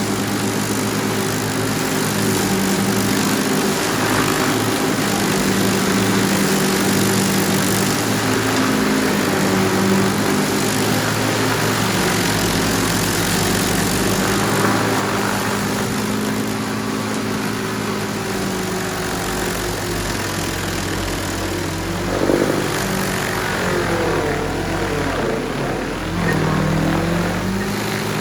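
Predator 56 tracked stump grinder running under load, its engine note wavering with a wide grinding noise, and dipping and recovering a few times in the last third as the cutting head digs into a poplar stump.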